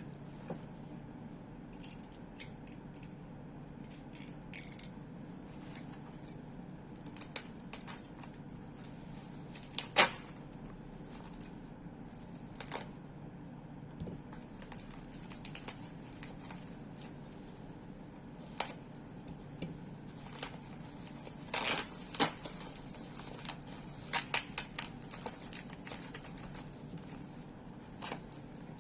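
Packaging being handled and opened: scattered sharp clicks, crinkles and tearing of plastic or cardboard, loudest about ten seconds in and in a cluster a little past twenty seconds, over a steady low hum.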